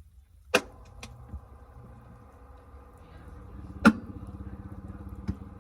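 Washing machine drum motor starting up after the water fill and running with a steady hum that swells a little, broken by a few sharp clunks, the loudest about four seconds in.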